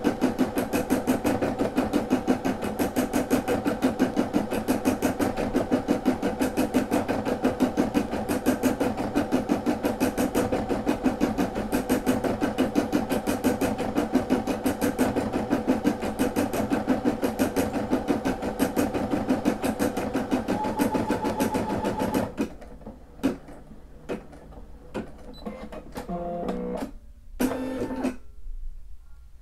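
Brother SE600 embroidery machine stitching a design in a fast, even rhythm, then stopping abruptly with several seconds left: the end of a colour section, ready for a thread change. A few faint clicks follow.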